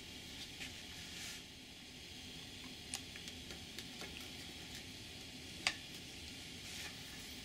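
Faint steady hiss with a few small clicks and taps, the clearest about three seconds in and just before six seconds, from a hot glue gun and a foam model airplane being handled.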